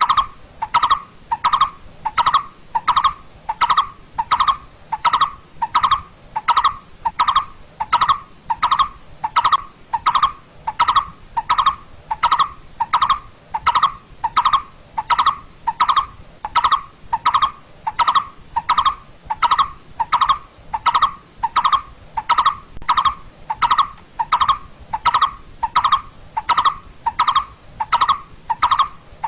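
Coppersmith barbet giving its call: a short, hollow 'tuk' note repeated at a steady, even pace, about three notes every two seconds.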